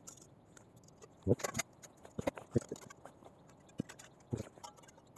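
Thin metal panels of a flat-pack twig-burning camp stove being handled and slotted together by hand. After about a second of quiet, a few light metal clicks and taps follow, scattered and irregular.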